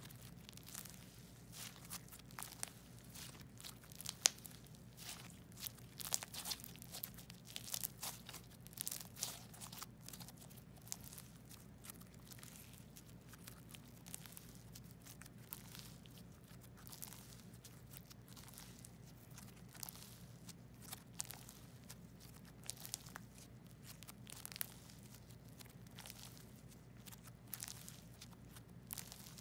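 Jelly cube slime being squished, folded and stretched by hand, giving a run of quick crackling clicks and small pops. The crackling is busiest in the first ten seconds, then sparser.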